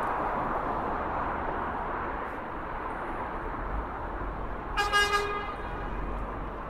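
Steady road-traffic noise, with a short vehicle horn toot about five seconds in.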